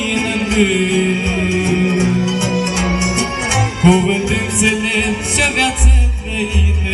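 A man singing a song into a microphone over a backing track, amplified through loudspeakers: a long, wavering sung melody over low bass notes.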